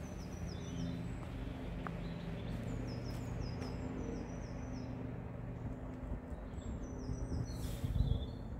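A small songbird singing short phrases of high notes that fall in steps, three phrases in all, over a steady low hum. Near the end there is a louder rustle and knock, like footfalls on the path.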